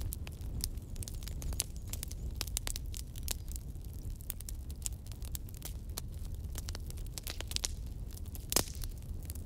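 Wood fire burning with irregular sharp crackles and pops over a low steady rumble, one louder pop near the end.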